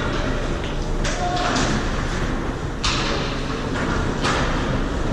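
Ice hockey skate blades scraping the ice: about three sharp hissing scrapes, roughly a second and a half apart, over a steady low rumble of rink noise.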